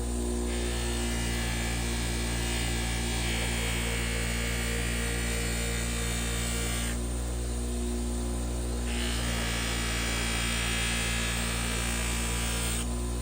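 Old bench grinder motor running with a steady hum while a forged knife blade is held against the spinning wheel to clean and polish it: two long scraping passes, about six seconds, then a short break, then about four more.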